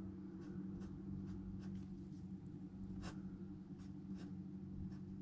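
Ballpoint pen scratching on paper in short, faint strokes as small leaves are drawn, over a steady low hum.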